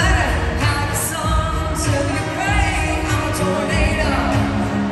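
Live country-pop band performing: a woman sings the lead over a steady kick-drum beat with drums, keyboard and guitars.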